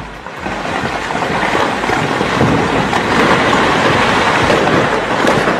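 Loud, steady roar of a debris-laden flash flood, with the rumble of a multi-storey building collapsing into it; the roar swells about half a second in.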